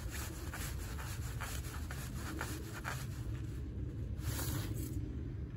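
Hand turning the handwheel of an old main water shutoff valve open, with faint rubbing and ticking from the stiff handle over a steady low rumble.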